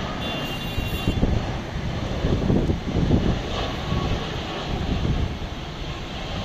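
Twin-engine jet freighter's engines on final approach with the landing gear down: a deep, steady jet rumble that grows louder around the middle as the plane passes closest.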